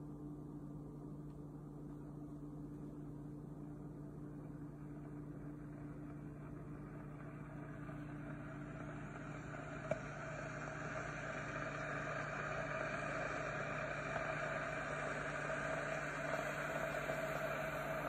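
SAKI electric Turkish coffee maker brewing: a steady electrical hum, joined by a hiss of the coffee heating in its pot that grows louder from about eight seconds in. A single sharp click about halfway through.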